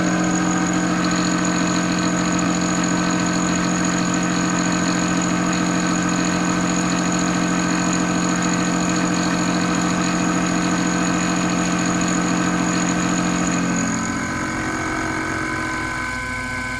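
Sherline CNC mill with a 1/4-inch four-flute carbide end mill cutting 1018 steel at 3 inches per minute: a loud, steady machining sound made of several steady tones. About fourteen seconds in, the lower tones drop out and it gets a little quieter.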